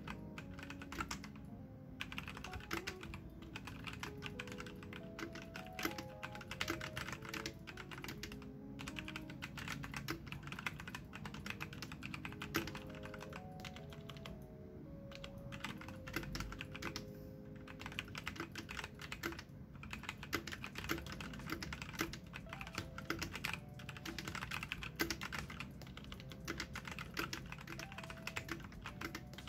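Typing on a Machenike K500 mechanical keyboard: a fast, continuous clatter of key presses with a few brief pauses. Soft background music plays underneath.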